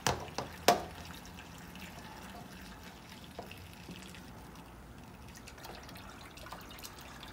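Kitchen tap running into a stainless steel sink, water splashing and trickling over plastic dishes as a toddler washes them. A few sharp knocks in the first second, the dishes striking the sink.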